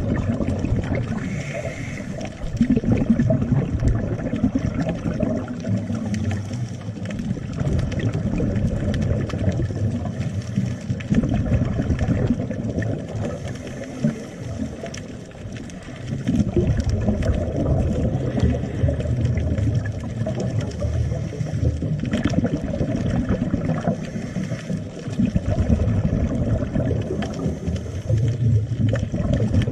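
Underwater sound of a scuba diver breathing through a regulator: a low rush of exhaled bubbles that swells and fades with each breath, muffled through the camera's underwater housing.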